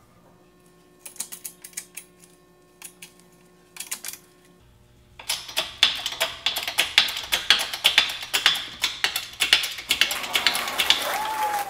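Hydraulic shop press being worked to press in a polyurethane bushing: a few scattered clicks and taps, then from about five seconds in a dense run of rapid, sharp metallic clicking.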